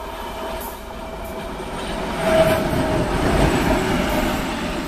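TEM2 diesel-electric shunting locomotive passing close by: the diesel engine's drone and the wheels running on the rails grow louder to a peak about two and a half seconds in, then begin to fade as it goes past.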